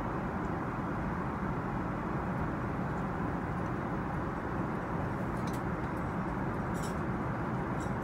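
Steady rush of Airbus A380 cabin noise in flight, deep and even, with a few faint clicks about five and seven seconds in.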